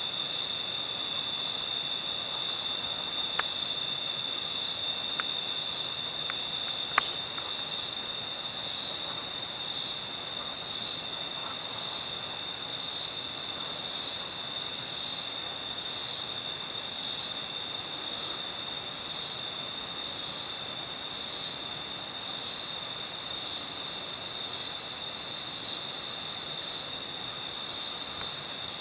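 Steady, high-pitched chorus of insects, many tones sounding at once without a break; the highest part of the chorus thins out about eight seconds in.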